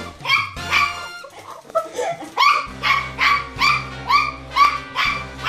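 Poodles barking in quick, evenly spaced yaps, about three a second, with a short lull about a second in. This is alert barking at someone arriving at the door.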